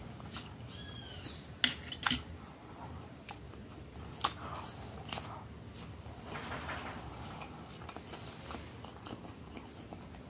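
Metal fork clinking against a metal plate while picking up boiled cassava: a few sharp clinks, the loudest two about a second and a half and two seconds in, with a short squeak just before them.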